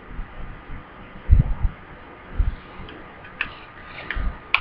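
Handling noise from hands moving close to a webcam microphone: a few soft low thumps and faint taps over a steady faint hiss.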